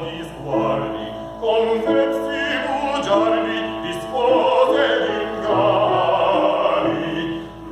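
Classical operatic singing in Italian with vibrato, over a steady instrumental accompaniment.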